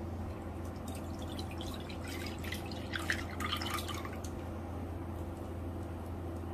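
Liquid pressed from grated potato dripping through a mesh sieve into a glass bowl, a scatter of small drips for a few seconds that thins out, over a steady low hum.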